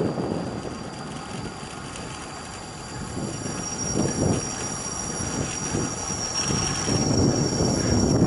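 Wind buffeting a helmet-mounted action camera's microphone while cycling, in uneven gusts that ease off early and build again near the end. A thin, steady high-pitched whine runs through it and grows louder in the second half.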